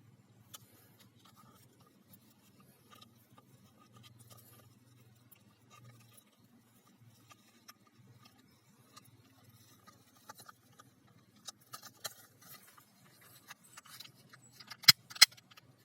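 Faint scattered clicks and rustles over a low hum, growing busier towards the end and ending with two sharp, loud clicks.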